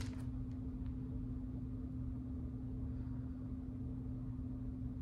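Steady low hum of room noise with one constant tone and no separate events.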